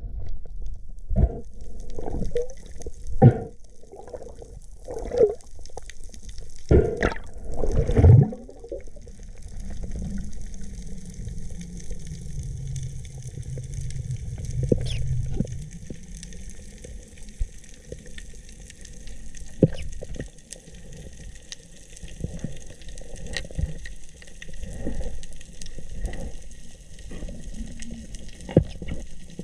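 Muffled water sloshing and bubbling, with splashes about once a second in the first eight seconds, then a low rumble and softer scattered splashes.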